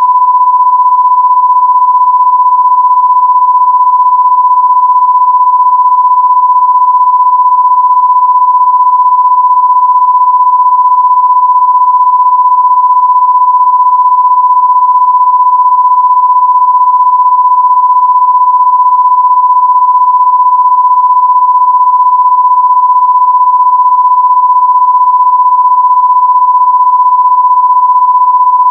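A loud, steady electronic sine-wave tone at about 1 kHz, one unchanging pitch held throughout.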